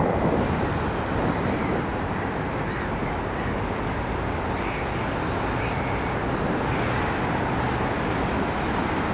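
TU7A narrow-gauge diesel locomotive running light, its V12 diesel engine running at a steady drone as it approaches.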